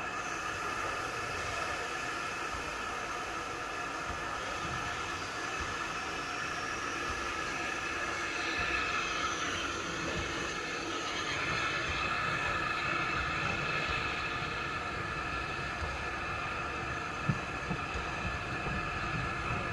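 Steam railway train moving slowly along the track, a steam tank locomotive running forward, with a steady high-pitched whine over a low rumble. A single sharp knock comes near the end.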